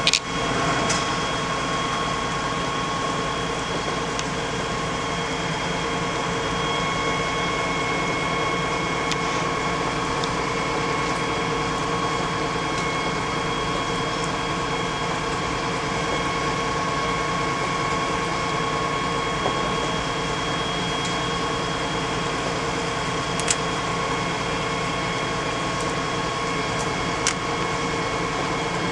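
Fire engine's engine and water pump running steadily while a car fire is being put out: a constant mechanical hum with a few steady whining tones, broken now and then by faint short clicks.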